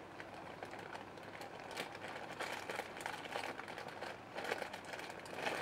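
Faint handling noise: light rustling and scattered small clicks, a little busier midway and near the end.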